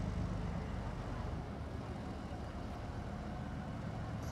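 Heavy military vehicle's diesel engine running steadily with a low drone; about a second and a half in, its note shifts lower and turns more pulsing.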